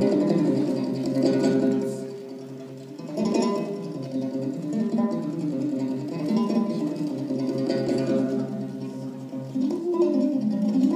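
Solo Kazakh dombra playing a kuy, the two strings plucked and strummed in a continuous run of notes. The playing drops to a softer passage about two seconds in, then picks up again.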